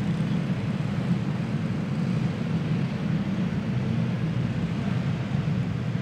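A pack of single-cylinder clone kart engines running steadily at low speed on the pace laps, one even drone.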